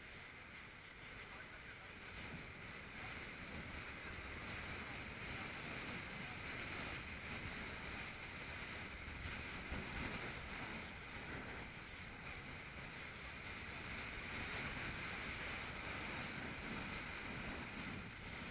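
Inflatable boat under way through choppy surf in strong wind: wind buffeting the camera microphone over water rushing and splashing against the hull, a steady noisy rush that swells a little after the first few seconds.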